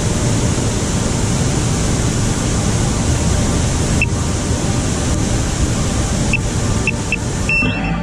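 Waterfall roar: a loud, steady rushing of falling water, with a few brief high chirps in the second half. It cuts off just before the end.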